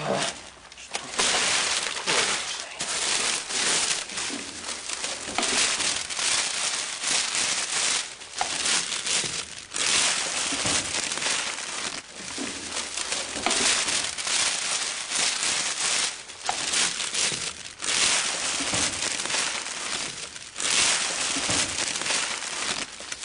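Crinkled plastic sheeting rustling and crackling close to the microphone, continuous and irregular, swelling and easing every second or two.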